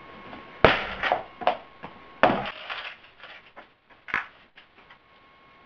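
Skateboard deck and trucks knocking and clattering on a hard floor as the board is handled and picked up: two loud knocks about a second and a half apart, lighter clatters between them, and one more knock later.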